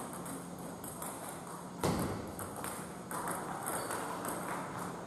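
Table tennis ball being served and rallied, knocking off the paddles and the table in a large hall, with one loud knock about two seconds in, over a steady background hum.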